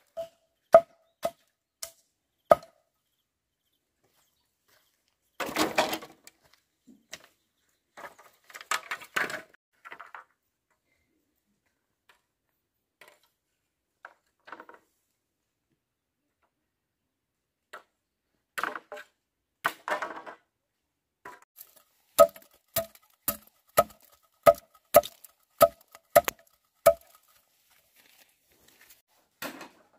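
A blade chopping into a wooden log: sharp strikes, each with a short metallic ring. There are a few strikes near the start and a longer run of about two a second in the second half, with rustling and handling noise in between.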